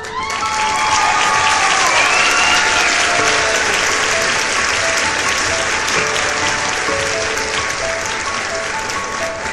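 Applause, dense and loud, over background music of held notes.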